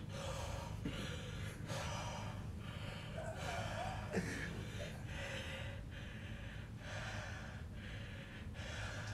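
A man panting hard through an open mouth, a quick run of heavy, gasping breaths about one a second, from the burn of a Carolina Reaper chili pepper he has just eaten.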